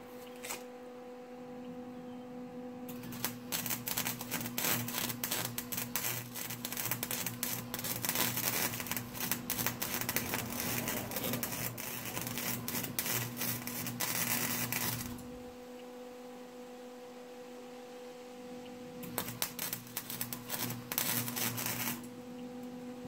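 Wire-feed welder arc crackling and sputtering as a bead is run on a steel muffler pipe: one long weld of about twelve seconds, a short pause, then a shorter weld of about three seconds. A steady hum runs underneath throughout.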